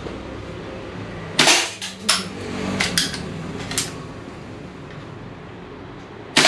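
Air pistol being worked and fired. A sharp shot sounds about one and a half seconds in, a few small clicks of the mechanism follow, and a second sharp shot comes near the end.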